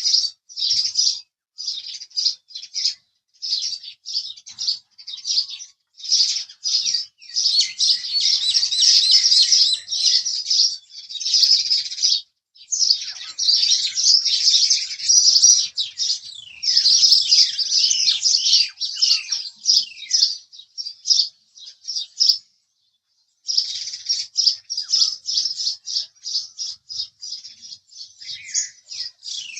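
House sparrows chirping in fast, busy runs of short chirps, with a pause of about a second around three-quarters of the way through.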